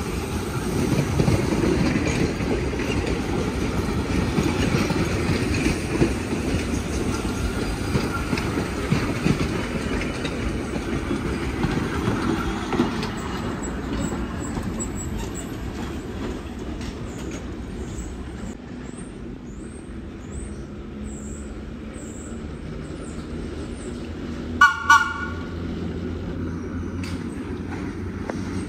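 A vintage R1-9 New York City subway train rumbling and clattering past on the tracks, its noise dying down after about twelve seconds. A steady low motor hum follows as another vintage train comes along, and two short horn toots sound near the end.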